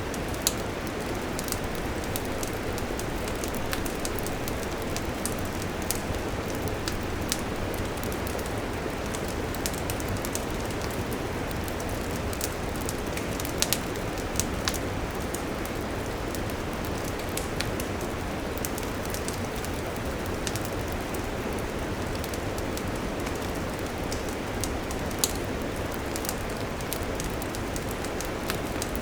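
Wood fire burning with a steady rushing hiss and many scattered sharp pops and crackles; a few pops stand out louder, two close together about halfway through.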